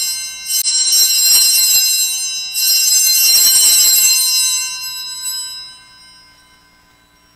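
Altar bells rung at the elevation of the chalice during the consecration: a jangling ring of several small bells, shaken again twice, then dying away about six seconds in.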